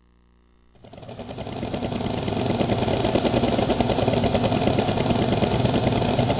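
Synthesized motor-like sound effect from a karaoke machine's MIDI sound module (Roland SC-88 / Dream SAM9703): a steady drone with a rapid flutter, fading in about a second in and then holding level.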